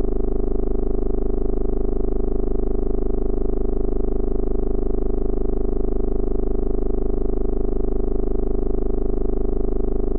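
Synthesized eerie pulsing drone: a steady low hum with a stack of tones above it, throbbing quickly and evenly.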